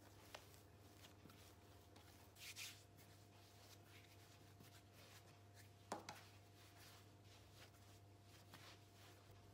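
Faint sounds of hands kneading soft bread dough on a floured countertop: quiet rubbing and pressing, a brief swish about two and a half seconds in and a small knock near six seconds, over a low steady hum.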